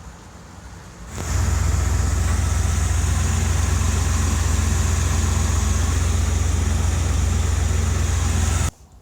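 RV engine idling steadily with a low hum, starting abruptly about a second in and cutting off suddenly near the end.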